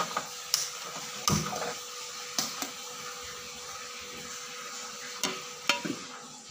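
Phone handling noise: several scattered knocks and taps, most in the first three seconds and again near the end, over a faint steady hum.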